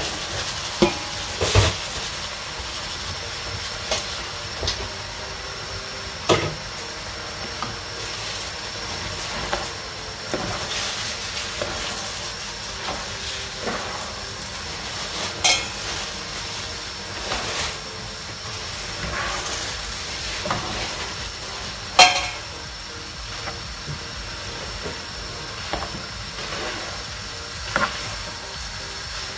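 Paella mixture sizzling in a large frying pan as raw rice is poured in near the start and then stirred and turned with two spatulas. Scattered sharp clicks and scrapes of the utensils against the pan, one louder knock about two-thirds of the way through.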